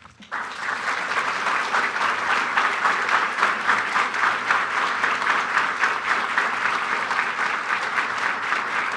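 Audience applauding. The clapping breaks out a moment in and stays dense and steady throughout.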